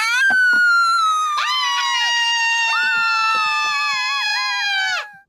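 A cartoon mouse girl's long, high-pitched scream, held for about five seconds, its pitch slowly falling and wavering near the end before it cuts off. Two light knocks sound just after it starts.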